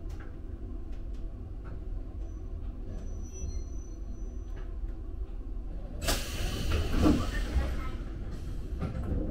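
Interior of a Toyama Chiho Railway electric train at a station stop: low steady rumble with faint clicks, a faint high squeal around three seconds in, then a loud hiss of released compressed air starting about six seconds in and dying away over about three seconds.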